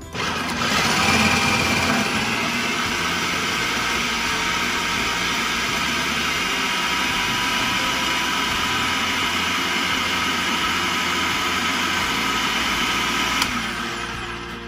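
Electric food processor running, its blade chopping onion pieces into a vegetable mix: a steady whirring motor whine that starts at once, holds level, then cuts off about a second before the end and winds down.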